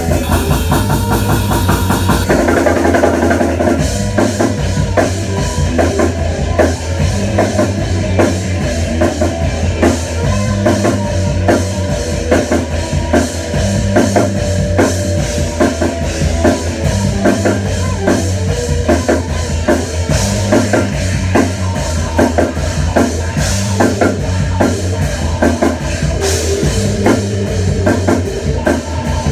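Rock band playing live: electric guitars and bass over a drum kit, with a steady driving beat.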